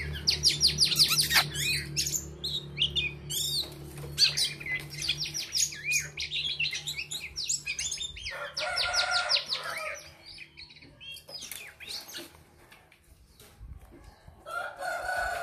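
Female oriental magpie-robin calling in quick runs of short, sliding high chirps. The chirping thins out after about ten seconds, and a lower, drawn-out call comes twice: once about nine seconds in and once near the end.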